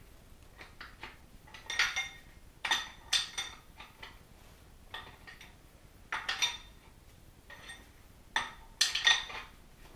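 Engine main bearing caps and bearing shells clinking against the block and each other as they are pulled out and set down: a series of sharp metallic clinks about every second, some ringing briefly.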